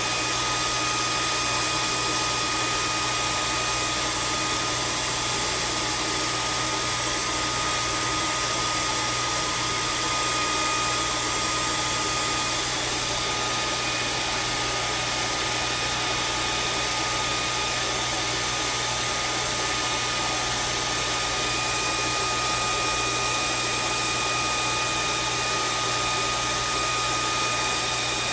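A 1200-watt handheld hair dryer running steadily, blowing hot air to shrink heat-shrink tubing onto a crimped copper battery cable lug: a constant rush of air with a steady high whine.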